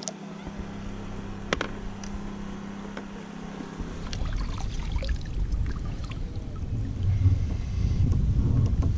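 Water splashing and lapping around a kayak as it is paddled and handled, with a sharp knock about one and a half seconds in. A low rumble grows louder from about four seconds in.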